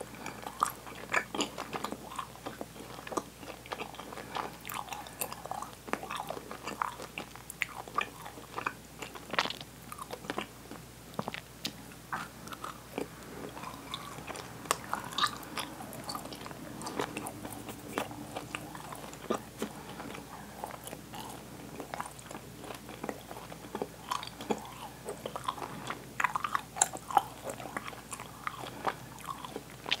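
A person chewing sticky, chewy Swedish candy with the mouth open: irregular wet smacking and clicking, the candy sticking to the teeth.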